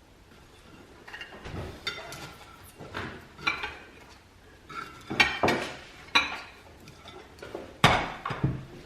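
Kitchenware being handled: a string of clinks, clatters and knocks of metal and dishes, some ringing briefly, starting about a second in, with the loudest knock near the end.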